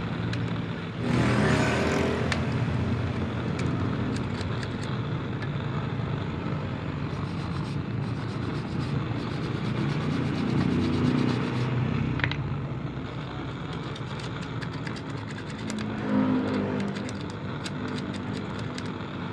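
Blowtorch burning steadily against an alternator rectifier plate, melting the solder of the old diodes, with a louder flare about a second in. Scattered clicks and scraping of pliers and a wire brush on the metal plate.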